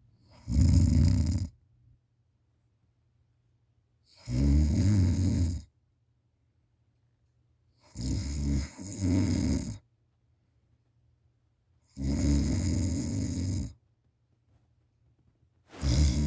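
A sleeping person snoring, one rasping snore about every four seconds, each lasting a second or two. Four snores, the third broken in the middle, and a fifth begins near the end.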